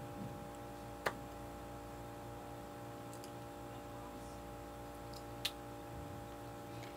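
Steady hum of several fixed tones under a faint hiss, with two sharp clicks: one about a second in and another about five and a half seconds in.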